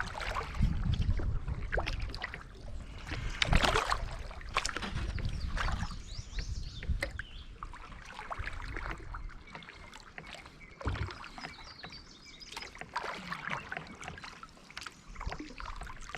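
Kayak on a river: water splashing and dripping at the paddle and hull, with a few sharper splashes or knocks, and a low wind rumble on the microphone over the first several seconds.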